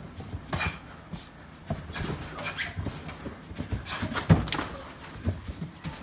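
Two fighters sparring: feet thudding and shuffling on the floor, blows landing, and short, hard breaths from the fighters, in irregular bursts with the loudest hit about four seconds in.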